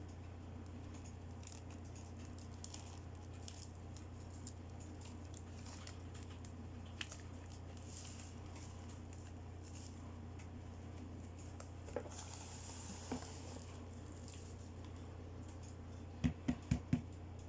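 Small plastic toy accessories being handled, giving a few isolated light clicks and then four quick taps near the end, over a steady low hum.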